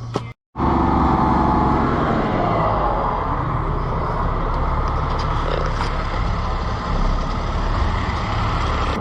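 A motor vehicle's engine running steadily, with a low hum and road-type noise, starting abruptly just after the start.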